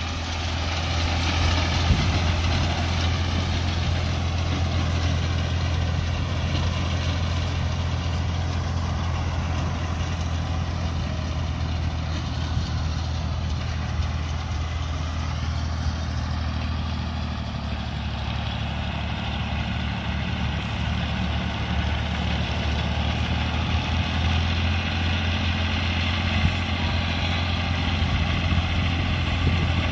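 Al-Ghazi tractor's diesel engine running steadily under load as it drives a reaper binder cutting standing wheat. It is a little quieter around the middle and swells again later.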